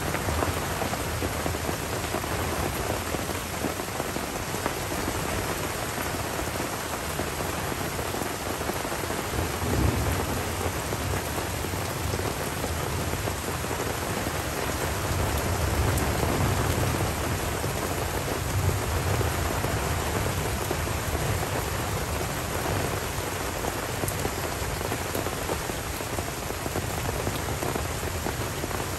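Tropical rain falling steadily on forest foliage and a wet dirt track, with distant rolling thunder rumbling low, swelling about a third of the way in and again past the middle.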